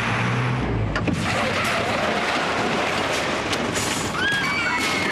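Lorry braking hard as it hits a pedestrian: low engine rumble broken by a thump about a second in, then a steady hiss of brakes.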